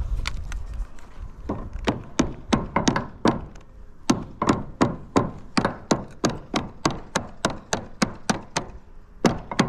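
A hammer striking steadily, about three sharp blows a second, after a faint start in the first second or so.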